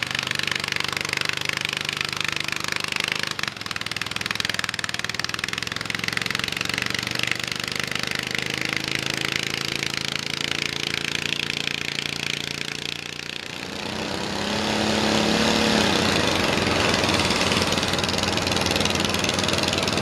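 Small garden tractor engine running steadily while hitched to a pulling sled. About two-thirds of the way in, it gives way suddenly to a louder garden tractor engine that revs up and then holds.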